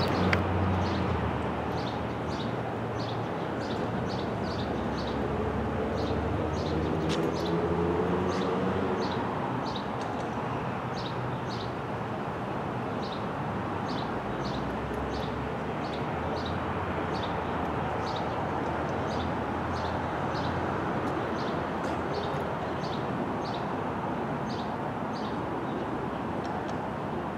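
Norfolk Southern freight train's diesel locomotives running as a steady low rumble, with a pitched engine note showing for a few seconds about five to nine seconds in. A small bird chirps over and over above it.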